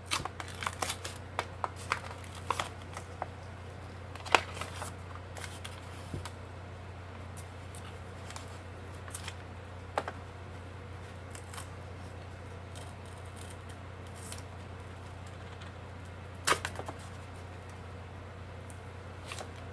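Scissors snipping and a mold being peeled off a cured silicone casting by hand. Scattered clicks and crackles come thick in the first few seconds, then a few sharper snaps spaced out, over a steady low hum.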